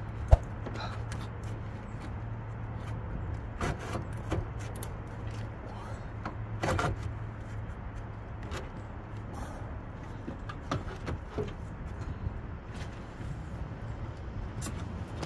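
Scattered knocks, clicks and scrapes of metal parts as a car's AC compressor is worked loose and maneuvered up through the engine bay, over a steady low hum. A sharp click about half a second in is the loudest.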